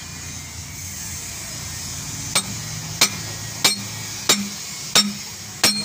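Hammer blows on a steel liner-driving tool, pressing a new cylinder liner down into a diesel engine block. There are six sharp metal-on-metal strikes at about one and a half a second, starting a little over two seconds in.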